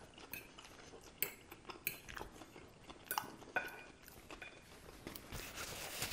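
Metal fork clinking and scraping on a ceramic plate while picking through an iceberg lettuce salad, in scattered short clicks and a few brief pings, with close-miked chewing of crisp lettuce.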